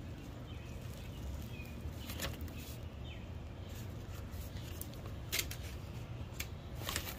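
Faint rustling and scattered light clicks and taps from thin metal dash bezel plates and plastic packaging being handled over bubble wrap.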